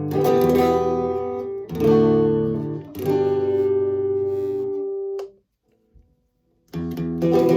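Fender Stratocaster electric guitar strumming three chords, each left to ring, the last fading out. After a short pause with a faint click, playing starts again near the end.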